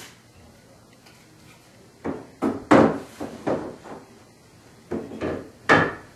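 Wooden loveseat parts knocking together as the curved top piece is fitted onto the slats. There is a run of sharp knocks about two seconds in and a second group near the end.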